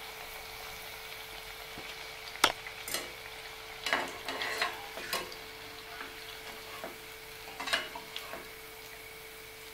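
Hot oil sizzling steadily in a kadai as pumpkin fritters are deep-fried on a low flame, with a wire-mesh spider strainer clicking and tapping against the pan several times as the fritters are lifted out.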